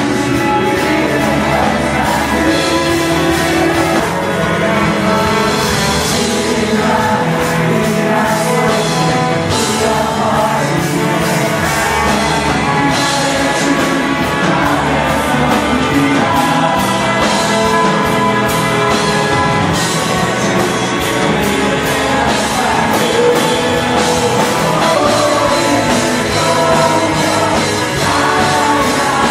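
Band music with a singing voice, playing steadily and loudly throughout.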